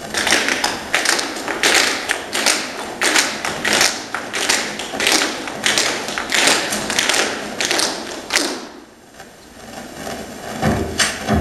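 Crisp, sharp percussive hits in a steady rhythm, about two a second, stopping after about eight and a half seconds. After a short lull, music with a bass beat starts near the end.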